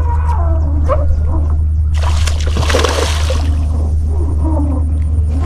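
A hooked fish splashing and thrashing at the water's surface while being played on a rod, a burst of about a second and a half starting about two seconds in, over a steady low rumble.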